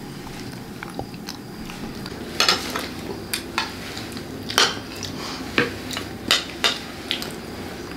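Spoons clinking and scraping against ceramic plates and a serving bowl: a string of irregular sharp clinks, sparse at first and more frequent from about two seconds in.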